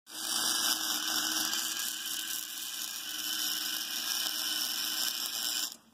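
Wire-feed (MIG) welder running a bead on a steel truck frame: a steady hiss that stops suddenly near the end as the arc is broken.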